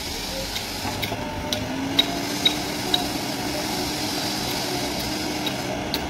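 JCB 3DX Plus backhoe loader's diesel engine running steadily, with a series of sharp knocks from the machine at work, the loudest three coming about two to three seconds in.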